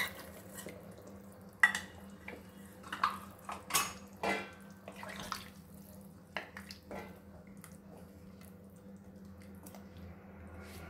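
A steel spoon clinks and scrapes against a small bowl several times in the first few seconds as cornflour slurry is scraped into a pan of sauce. Then a wooden spatula stirs the thickening sauce quietly.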